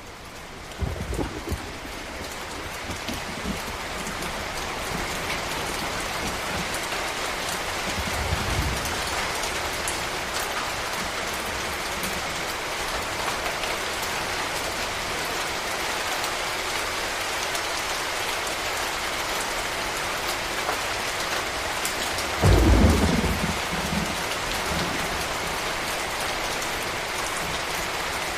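Steady heavy rain hissing, building over the first few seconds, with low thunder rumbles about a second in, again around eight seconds, and the loudest about twenty-two seconds in.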